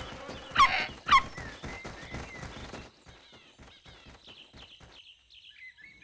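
Cartoon sound effects: two short animal calls, the first about half a second in and the second about a second in, then light tapping and rustling with faint bird chirps, fading out near the end.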